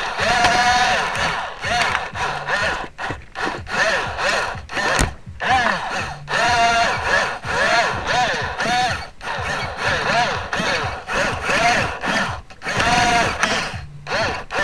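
Small electric drive motors and gearbox of a Dickie-Simba radio-controlled toy snow groomer whining in short bursts about once a second, each rising then falling in pitch as the throttle is pulsed. A sharp click about five seconds in.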